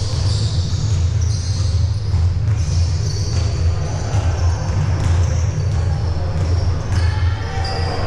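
Basketball game sounds on a gym court: a ball bouncing and sneakers squeaking in short high chirps, over a steady low hum.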